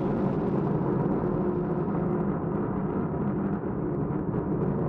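Falcon 9 first stage's nine Merlin engines during ascent, a steady heavy rumble. The upper hiss fades over the first couple of seconds as the rocket climbs away.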